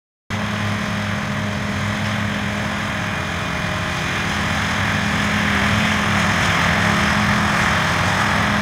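NEXAT wide-span tractor's engine running steadily as it drives across the field: an even mechanical noise over a constant low hum. It cuts in abruptly just after the start.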